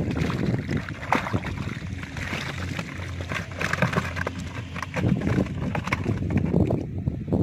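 Water splashing out of a large plastic bottle onto grass, with small live fish flopping and slapping on the wet grass in a string of irregular knocks.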